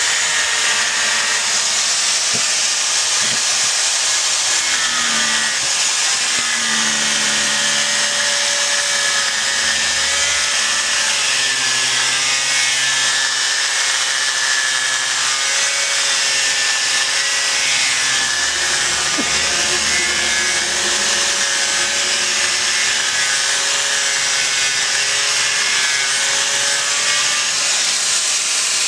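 Handheld electric angle grinder running continuously while its disc grinds and sands monkeypod wood, a steady grinding hiss with the motor's pitch wavering up and down.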